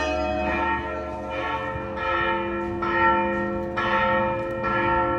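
Church bells ringing, struck a little under once a second, each stroke's tones still hanging on when the next one sounds.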